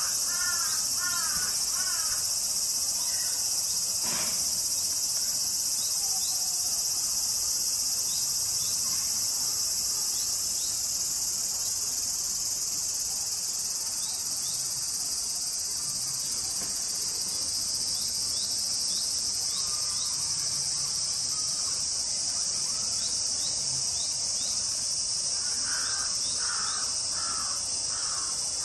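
Steady, high-pitched drone of an insect chorus outdoors. Short, repeated bird calls sound over it in the first two seconds and again near the end.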